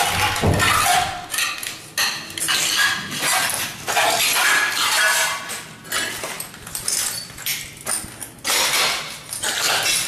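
Footsteps crunching and scraping over broken glass and rubble, with debris clinking underfoot in an irregular series of crunches.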